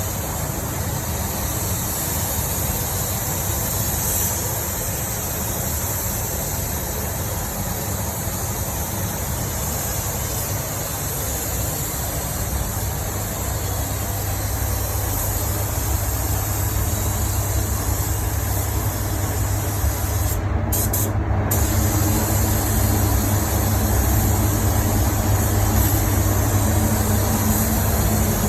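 Steady hiss of air over a low machine hum. The hiss stops twice for a moment about two-thirds of the way through while the hum carries on.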